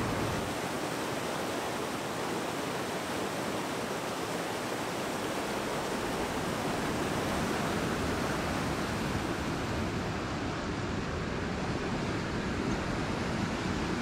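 Steady rushing of a mountain river's whitewater rapids, an even, unbroken roar of water.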